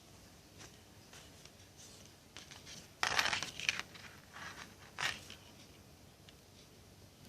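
Handling noise from a foam squishy toy being touched and squeezed: light scratchy rustles, a louder rustling burst about three seconds in that lasts about a second, and a shorter one about five seconds in.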